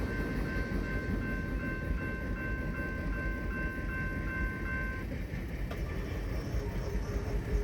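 Union Pacific manifest freight train rolling past with a low rumble, while a grade-crossing warning bell rings with a steady pulsing tone and cuts off about five seconds in.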